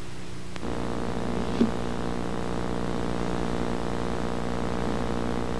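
Steady buzzing hum with many overtones. It grows a little louder after a click about half a second in, with a brief blip about a second later.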